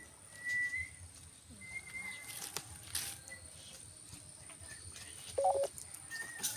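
Short, thin whistled notes held at one high pitch, heard a few times, with a few sharp clicks between them and a brief louder call near the end.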